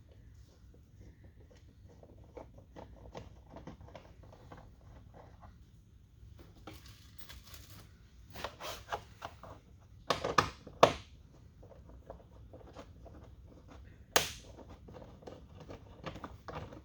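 Small clicks and rattles of fasteners being worked loose by hand on a truck's door panel, with a brief rustle, then a few sharp, loud knocks about ten seconds in and another near the end.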